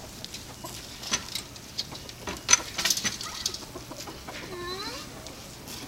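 Backyard chickens clucking among short rustling clicks, with one drawn-out call that rises and falls about four and a half seconds in.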